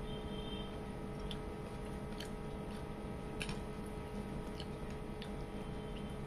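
A person eating rice and chicken curry by hand: chewing, with a few short sharp clicks and smacks as fingers mix rice on the plate, over a steady low room hum.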